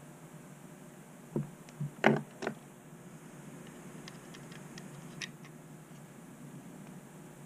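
Small hardware being handled by hand while fitting a fish finder mount: four knocks close together about a second and a half in, the third the loudest, then a scatter of light clicks a little after the middle, as screws, washers and the mount are handled.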